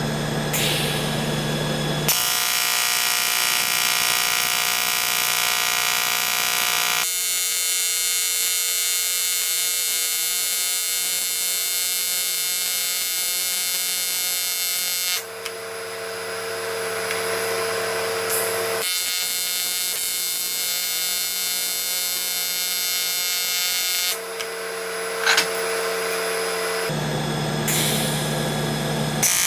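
AC TIG welding arc on aluminum from an HTP Invertig 400 inverter welder, a steady electrical buzz. Its pitch and tone change abruptly several times.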